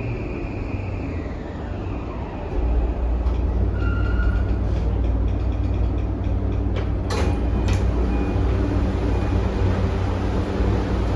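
Toei 5500 series train heard from inside the car. The whine of its Mitsubishi full-SiC VVVF inverter and induction motors falls in pitch and fades out in the first second or so. From about two and a half seconds in, a louder low rumble of wheels on track takes over, with two sharp clacks about seven seconds in.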